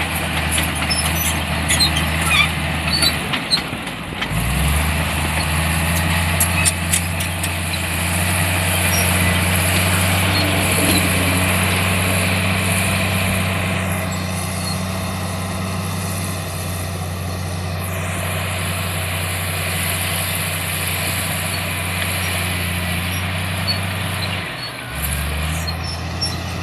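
Diesel engine of a heavy earthmoving machine running steadily under load, with metallic clanks in the first several seconds. The engine note dips and picks up again a few seconds in and once more near the end.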